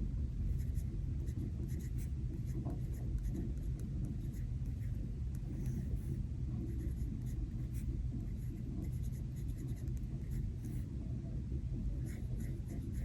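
Steady low rain-and-thunderstorm ambience rumbling under faint clicks and rustles of paper and a sticker being handled on a planner page.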